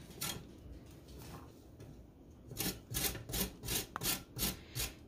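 Baby carrots being rubbed back and forth on a flat stainless-steel hand grater: a run of quick rasping strokes, several a second, starting about halfway through.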